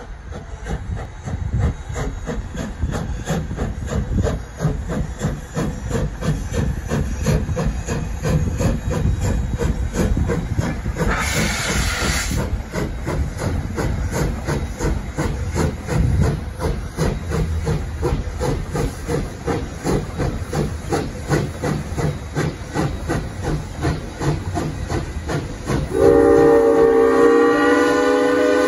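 Narrow-gauge steam locomotive working a train, its exhaust chuffing in a steady quick rhythm, with a short burst of steam hiss about eleven seconds in. Near the end it sounds a long blast on its chime steam whistle, several tones at once, the loudest sound.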